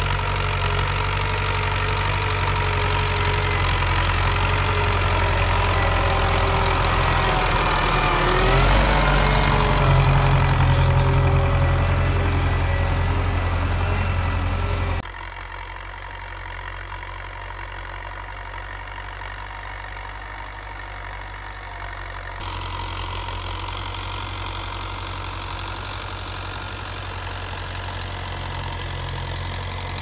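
Belarus MTZ-82 tractor's four-cylinder diesel engine running steadily under load while pulling a three-furrow plough. It is loud and close, its pitch wavering briefly about eight seconds in. About halfway through it drops abruptly to a quieter, more distant engine sound.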